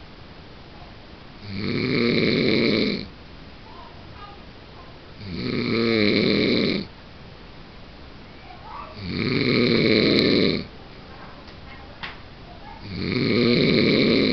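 A man snoring in his sleep: four loud snores about four seconds apart, each lasting about a second and a half, with quieter gaps between them.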